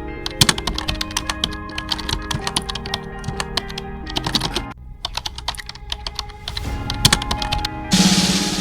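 Rapid clicking like computer-keyboard typing over background music, with a brief pause in the clicks partway through. Near the end a loud hiss with a low buzz comes in.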